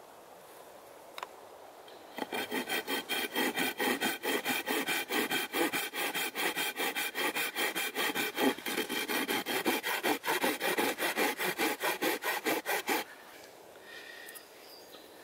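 Folding hand saw cutting through a piece of wood, fast even back-and-forth strokes at about five a second. It starts about two seconds in and stops suddenly a couple of seconds before the end.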